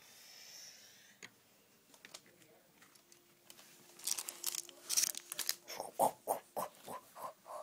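A child making helicopter noises with his mouth: breathy, noisy bursts start about four seconds in and settle into a quick chopping rhythm of about three or four a second.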